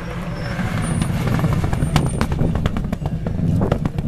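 Subaru Impreza rally car's flat-four engine running hard as the car passes. From about two seconds in comes a rapid series of sharp cracks.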